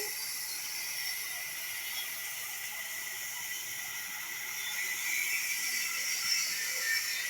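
Sawmill saw running with a steady high-pitched hiss and a thin, constant whine.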